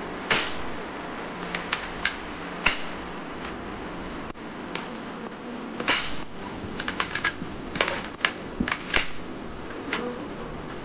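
Plastic toy crossbow and foam-dart guns being handled: a dozen or more sharp plastic clicks and snaps at irregular spacing, some in quick clusters, over a steady low hum.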